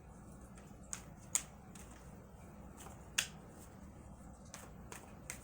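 A tarot deck being handled and shuffled: a few isolated sharp card snaps, the loudest about a second and a half and three seconds in.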